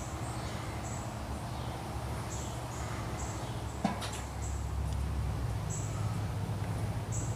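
Outdoor ambience: short high-pitched chirps repeat irregularly over a low steady rumble, with a single sharp click about four seconds in.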